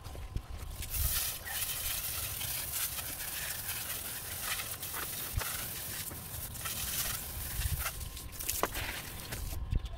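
Water spraying from a garden hose onto a potted tree's leaves and trunk: a steady hiss that starts about a second in and cuts off just before the end.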